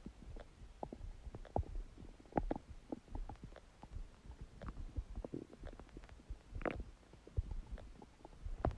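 Human stomach gurgling and rumbling: a low, irregular rumble broken by many quick bubbling pops and clicks, with a louder gurgle about two-thirds of the way through. These are the noises of gas and fluid moving through the gut during digestion.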